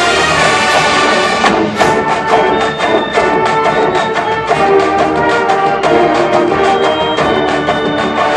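College marching band playing: massed brass (trumpets and trombones) over a drumline, which sets in with a brisk, steady beat about a second and a half in.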